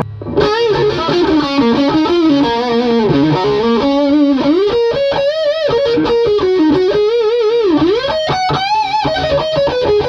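Zemaitis Z22EC electric guitar on its neck pickup, played through the overdriven second channel of a Friedman Runt 20 amp: a single-note lead line with string bends and wide vibrato on held notes.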